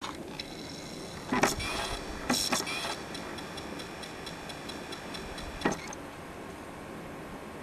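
Camcorder handling noise: several loud bumps in the first three seconds and another near six seconds, with a fast, even ticking in between that stops about six seconds in.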